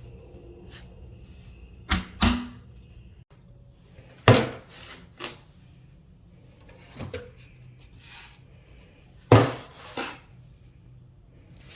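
Stackable storage bins knocked and set into place on a shelf: a run of sharp clacks and knocks at uneven intervals, the loudest about four and nine seconds in.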